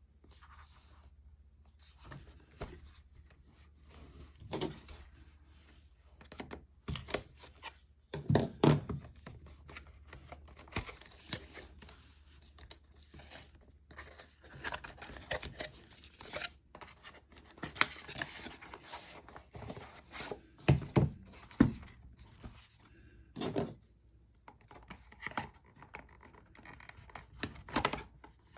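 A cardboard product box and its packing being opened and unpacked by hand: irregular scraping and rustling of cardboard and wrapping, with knocks as parts are lifted out and set down, the loudest about eight, twenty-one and twenty-eight seconds in.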